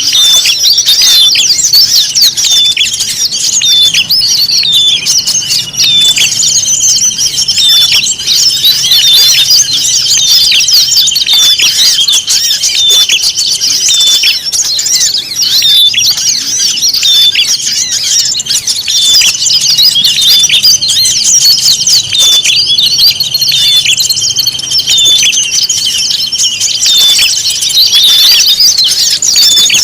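Dense, continuous chorus of many small songbirds chirping, trilling and calling over one another: a mixed bird-lure recording. A steady high buzzing trill is held underneath for several seconds, twice.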